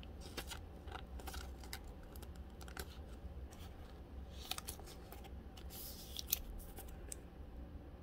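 Clear plastic card sleeve rustling and crinkling in the fingers as a thick game-jersey trading card is slid into it, with scattered light clicks of handling.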